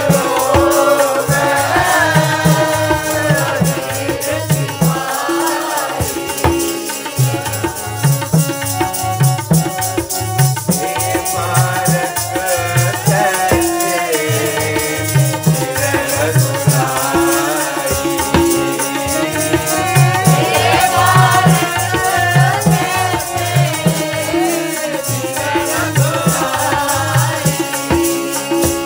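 Sikh kirtan music: a melody with gliding pitch over a dense, steady hand-drum rhythm, with jingling percussion.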